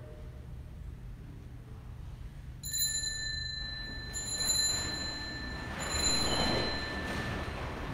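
A small bell rung about three times, each ring starting sharply with a clear, high, bright tone that rings on for a second or more. A low hum runs underneath before the first ring.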